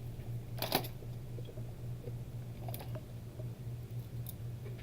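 Steady low electrical hum with a few small sharp clicks of hand tools being handled on an electronics repair bench; the loudest click comes just under a second in.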